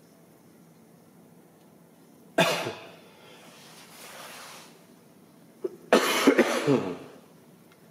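A person coughing: one sharp cough about two and a half seconds in, then a short run of harsher coughs near the end.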